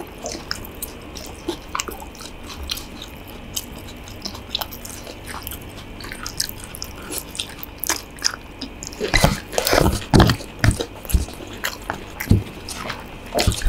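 Close-up eating sounds of someone eating stir-fried instant noodles: sparse small wet clicks and chews for most of the time, then a louder run of bites and chewing in the last few seconds.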